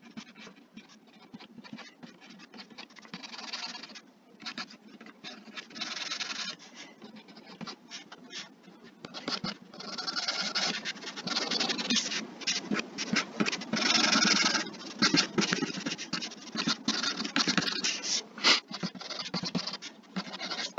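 Pen stylus scratching across a graphics tablet in quick, repeated strokes, louder and busier from about halfway through.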